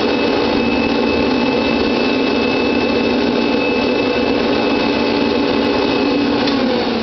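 A 1977 Hoover Junior Deluxe U2068 upright vacuum cleaner's 350 W dirty-fan motor running steadily with a high whine. Near the end it is switched off and its pitch starts to fall as it winds down.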